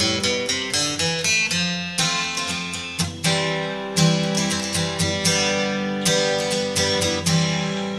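Background music of an acoustic guitar, played in a series of plucked and strummed notes that ring and fade.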